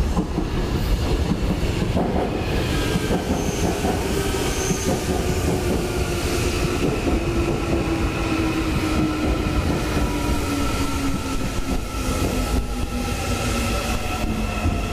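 Daegu Subway Line 2 Series 2000 electric train passing close and slowing into a station. Its wheels rumble and clack on the rails under an electric drive whine that falls steadily in pitch as it brakes.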